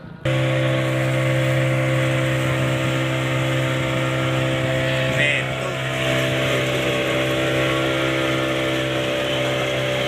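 Boat engine running at a steady speed, an even, unchanging drone.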